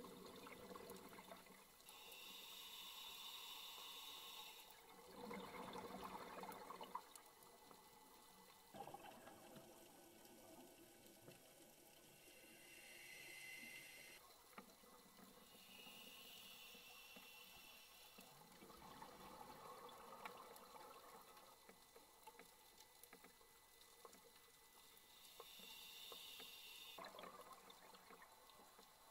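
Faint scuba regulator breathing underwater: a hissing inhale every several seconds, alternating with the bubbling rush of the exhale.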